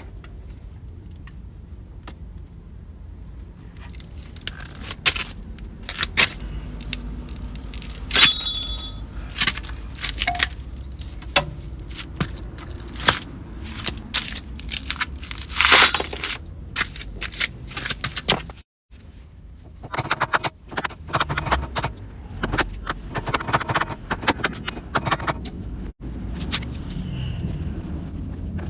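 Metal hand tools and parts clinking and scraping, with two loud metallic rings and many short clicks and knocks.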